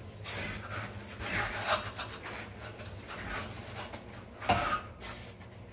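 Dishes and utensils being handled at a kitchen sink while washing up, with scraping and rubbing noises and one sharper knock about four and a half seconds in.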